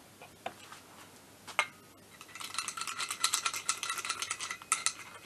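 Screwdriver working grease into the needle-bearing cage of a scooter's torque driver, metal scraping and clicking against metal. A couple of single clicks come first, then from about two seconds in a fast, continuous metallic rattling with a light ringing.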